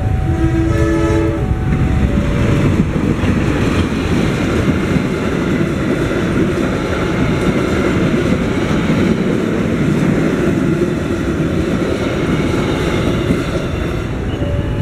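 A train passing over a level crossing: a short horn blast about half a second in, then the steady rumble and clatter of its wheels on the rails. The crossing's two-tone electronic alarm sounds at the very start and is then drowned out by the train.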